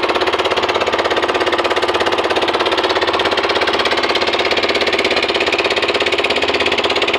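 Fishing boat's engine running steadily under way, with a rapid, even knocking beat.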